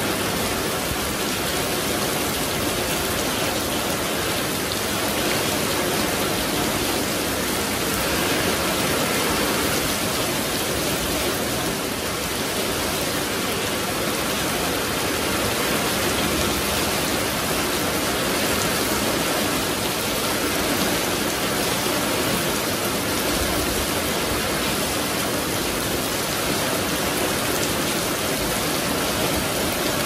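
Heavy rain falling steadily on a wet paved yard, puddles and garden foliage, a dense, even wash of splashing with no thunder.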